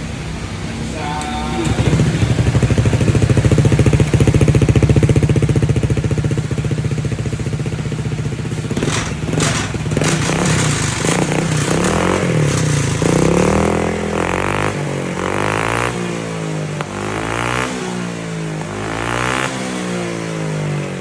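Honda ADV 160 scooter's single-cylinder engine running through an aftermarket Vamos full exhaust: a steady loud note for the first several seconds, then revved up and down again and again in quick blips through the second half.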